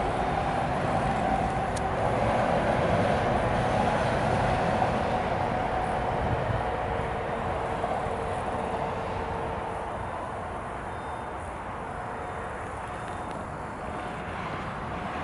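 Distant approaching container freight train hauled by a Newag Dragon 2 six-axle electric locomotive. A steady rumble runs with a held whine and eases off somewhat in the second half.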